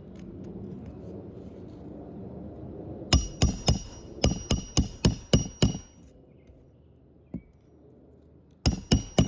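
A hammer drives new roofing nails into asphalt shingles, in quick ringing metal-on-metal blows: a run of about nine strikes, then a pause, then three more near the end.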